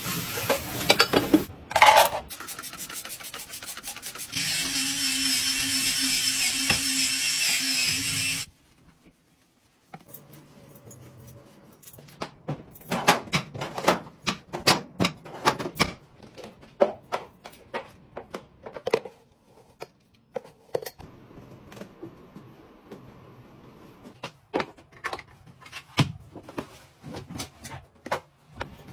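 Water spraying from a kitchen tap over bowls and plates as they are rubbed clean. Then a steady hiss and hum for about four seconds that cuts off suddenly. After a short quiet gap comes a long run of separate clicks and knocks as cabinet doors and kitchenware are handled.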